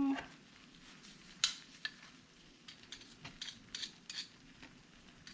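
Scattered sharp metallic clicks and taps from a metal garlic press and kitchen utensils as fresh garlic cloves are pressed. A brief pitched sound comes right at the start.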